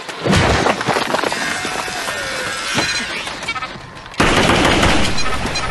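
Gunfire, with a sharp report just after the start and a sudden dense stretch of rapid fire about four seconds in.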